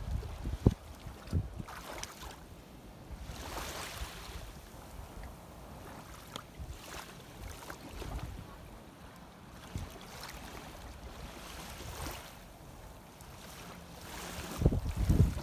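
Wind buffeting the microphone over shallow sea water, with a steady low rumble and swelling hiss of moving water. Sharp low thumps come about half a second in and again, louder, just before the end.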